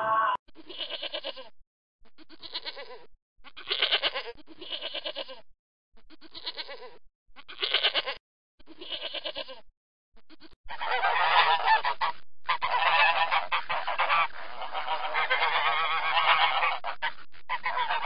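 A goat bleating in a series of separate calls, each about a second long. About eleven seconds in, black swans take over with dense, almost continuous calling.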